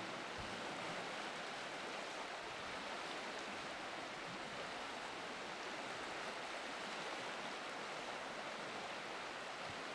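River water rushing steadily through riffles and rapids.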